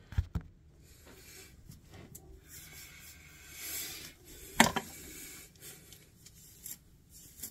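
Rubbing and rustling as hands work through a long wig's hair close to the phone's microphone, with scattered clicks of handling noise. A single sharp knock comes a little past halfway.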